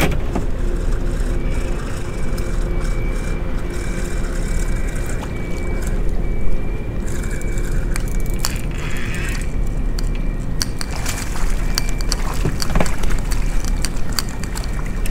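Steady wind rumble on the microphone over water noise on a small open boat, with a faint steady high-pitched tone and a few light knocks from handling the fishing rod.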